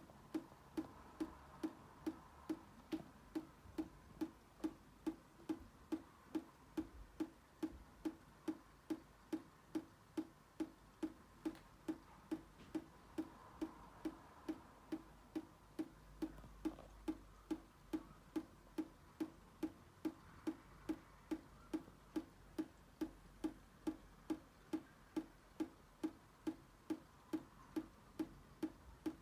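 Water dripping from a leaking tap at a steady pace of about two drops a second, each drop a short, hollow plink.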